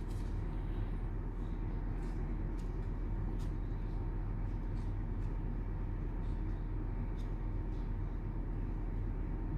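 Steady low rumbling background noise with a constant hum, and a few faint light ticks scattered through it.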